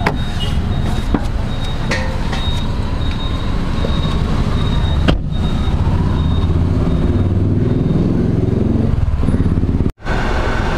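Steady road-traffic and engine rumble heard from inside a parked car, with a sharp click as the car door is opened at the start and another knock about five seconds in. The sound drops out for an instant near the end.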